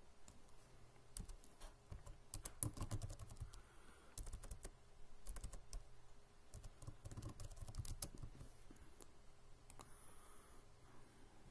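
Computer keyboard typing: key clicks in about three short bursts, with pauses between.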